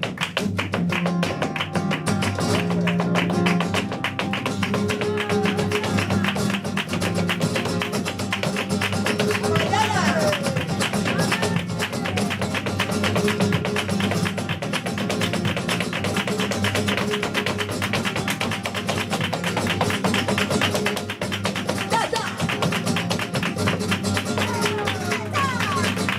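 Flamenco guitar playing tientos, accompanied by a dancer's rapid footwork: a dense, even stream of sharp taps from shoe heels and toes on the floor.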